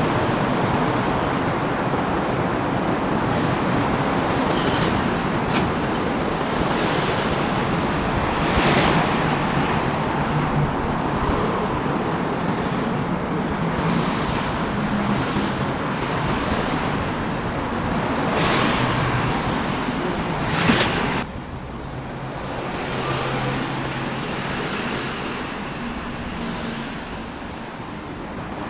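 Steady city road traffic, with several vehicles passing close by and swelling louder, around a third of the way in and again late on. The noise drops suddenly to a lower, more distant traffic hum about three-quarters of the way through.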